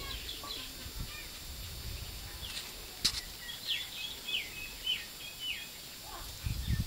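Small birds chirping outdoors: a run of short, quick, downward-sliding chirps in the middle, over a steady background hiss. A sharp click about three seconds in, and a low rumble near the end.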